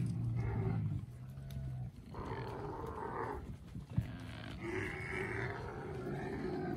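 Dromedary camels groaning and bellowing: a long, low call for about two seconds, then two shorter, rougher calls, with a sharp click about four seconds in.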